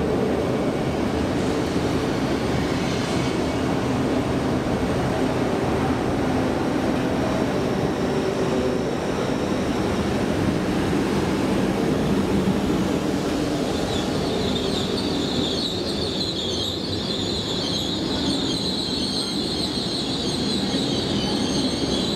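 Passenger train moving through the station, with a steady rumble and motor hum. About two-thirds of the way in, a high-pitched wheel squeal joins in and holds.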